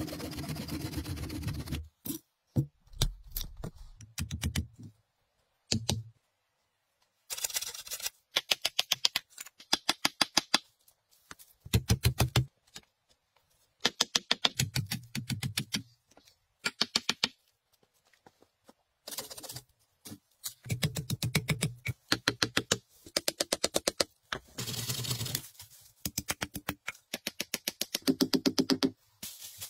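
Rapid trains of sharp wooden knocks, many a second, in short bursts that start and stop abruptly with near-silent gaps between: hand tools striking and splitting logs and poles.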